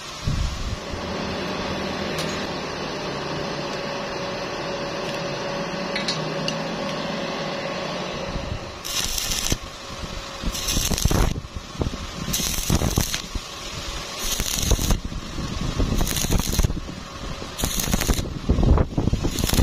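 Stick welding with an E6013 rod on thin galvanized square tube, done in short stitches: after a steady hum for about the first eight seconds, the arc crackles and hisses in about seven short bursts, each under a second, a second or two apart.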